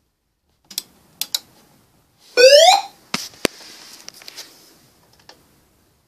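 Clicks from handling switches and wiring inside a fire alarm control panel. About two and a half seconds in, a fire alarm sounder gives one short, loud, rising electronic whoop, followed by two sharp clicks and a brief faint hiss.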